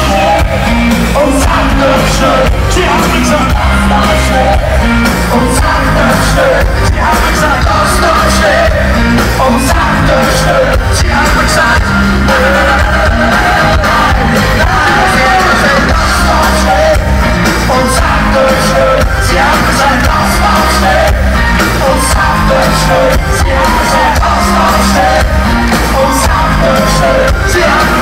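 Live rock band playing loud through a PA: male vocals over electric guitars, bass and drums with a steady beat.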